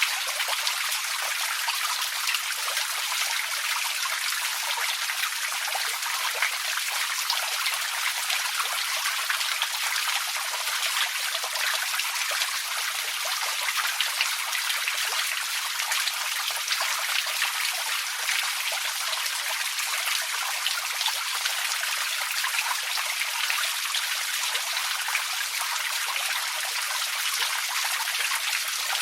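Small forest creek trickling and babbling over stones, a steady splashing hiss with fine flickering detail.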